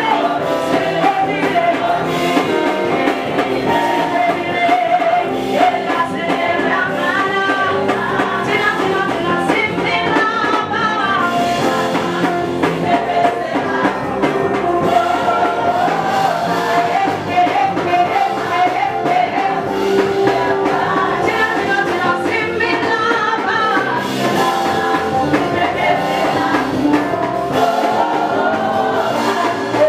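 A live gospel song: a group of women's voices singing together over instrumental band accompaniment.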